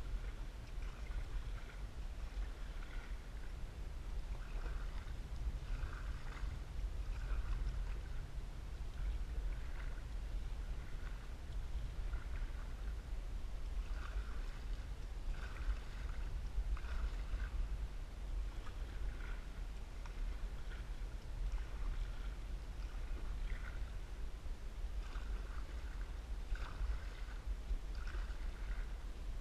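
Canoe being paddled across a lake: short watery splashes of the paddle and of water against the hull, recurring every second or so, over a steady low rumble.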